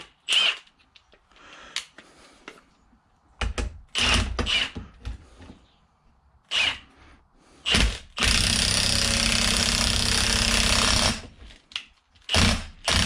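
Power tool driving the forcing screw of a ball joint press to push a new axle stud into the axle flange: a few short bursts and knocks while it is lined up, then one steady run of about three seconds about eight seconds in as the stud is pressed home.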